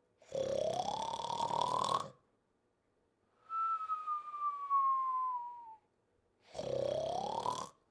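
Cartoon-style snore-and-whistle breathing of a sleeper. A rasping snore rises in pitch on the in-breath, a clean whistle falls in pitch on the out-breath, and then a second rising snore follows. Short silences separate each part.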